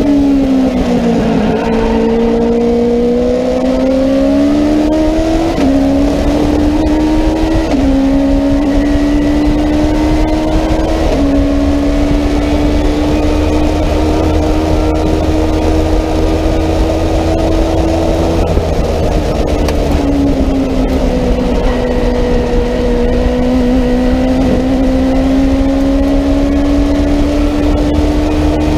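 Onboard sound of a Legends race car's Yamaha 1250 cc four-cylinder motorcycle engine under racing load. The engine eases off briefly at the start, then pulls up through the gears, its pitch dropping suddenly at each of three upshifts in the first eleven seconds. It holds steady revs, dips once about two-thirds of the way through, then builds again slowly.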